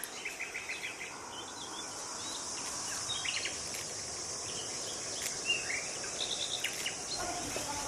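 Outdoor insect ambience, a steady high drone, with repeated short bird chirps and quick trills.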